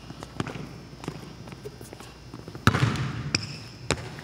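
A basketball bouncing on a hardwood gym floor: faint knocks at first, then one loud bounce about two-thirds of the way in, with a short rubber sneaker squeak just after it and another sharp knock near the end.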